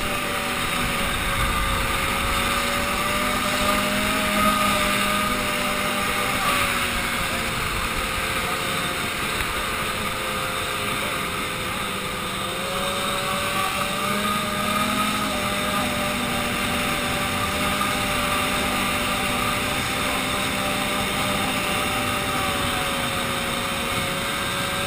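Ski-Doo snowmobile engine running steadily at cruising speed across the ice, its pitch wavering slightly and dipping a little around the middle, under a constant rush of wind and track noise.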